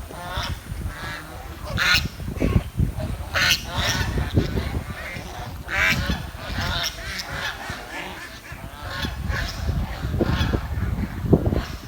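Swans calling: a run of short, repeated honking calls, several close together and overlapping, over a low rumble.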